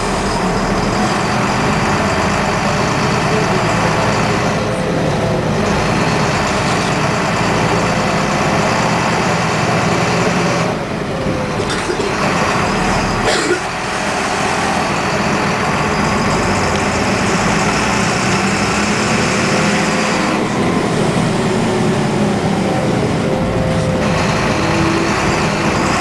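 MWM 6.12TCE turbocharged six-cylinder diesel of a Volksbus 17.230 EOD city bus, running with its pitch rising and falling, a high whine riding over it. The sound dips briefly about eleven seconds in and again about thirteen and a half seconds in.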